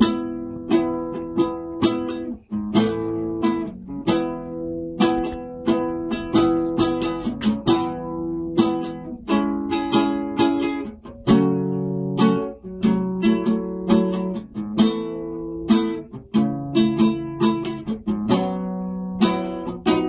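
Acoustic guitar introduction: strummed chords in a steady rhythm, without voice.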